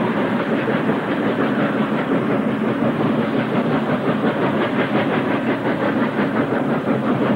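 NSWGR steam locomotive working away, its exhaust beating in a rapid, even chuff over a steady hiss of steam.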